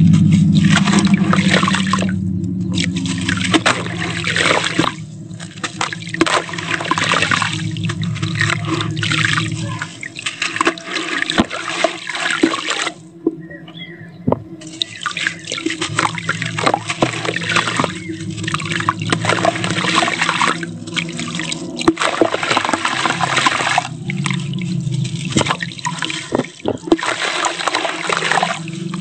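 Hands crumbling a block of sand-cement mix into a tub of water: gritty crunching and sand pattering and splashing into the water, with hands swishing through the water. There is a brief lull about halfway through, and a low steady hum underneath that is strongest at the start.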